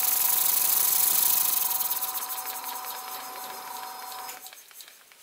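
Stuart S50 model horizontal steam engine running smoothly on compressed air: fast, even exhaust puffs over a steady hiss, slowing and getting quieter, then cutting off about four and a half seconds in.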